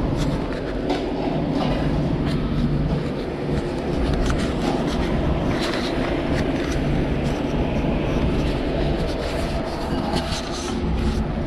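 Steady rumbling hum of a restaurant kitchen's ventilation and equipment, with scattered clinks and clatter.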